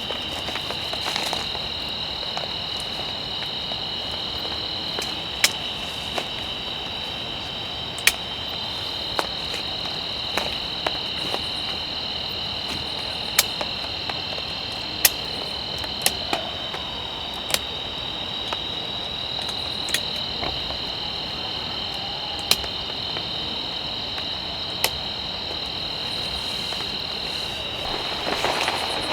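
Steady, high-pitched chorus of forest insects holding two shrill tones without a break. A dozen or so sharp, short clicks fall irregularly through it, and a rustle rises near the end.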